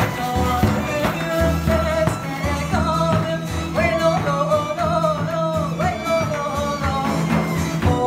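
Live band music: a woman sings a melody over frame drums and a steady low beat.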